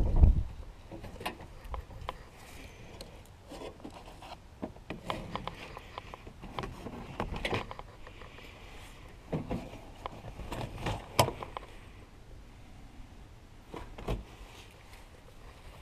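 A soft thump at the start, then scattered light clicks, taps and scrapes of handling around a truck's rusted cab floor and rocker panel, a hand brushing the rusted sheet metal.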